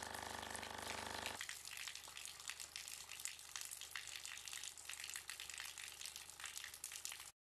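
A loudspeaker sounds a low humming tone to shake a hose's falling water stream, over a spattering hiss. About a second and a half in the tone cuts out, leaving water falling and splashing with many small crackling drips, and the sound stops abruptly near the end.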